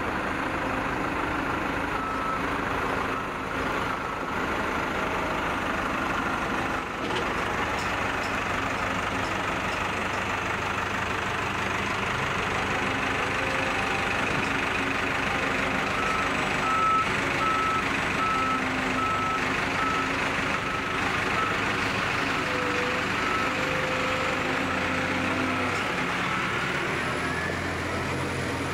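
Diesel engines of a wheeled rail excavator and an articulated dump truck running steadily, with a backup alarm beeping in a steady repeating pattern from about halfway through.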